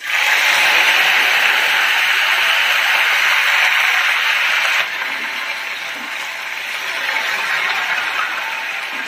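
Fresh curry leaves hitting hot oil in a wok of tempering mustard seeds, fenugreek and dried red chillies: loud sizzling and spattering that starts suddenly, drops to a lower level about five seconds in, and carries on.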